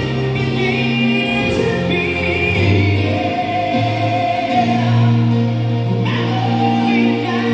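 Live ballad played through a PA system: a singer holds long notes into a microphone over sustained electronic keyboard chords and low bass notes.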